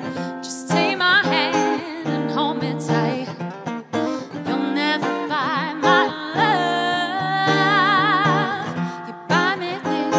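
A woman singing live with vibrato over an acoustic guitar accompaniment, holding some long notes.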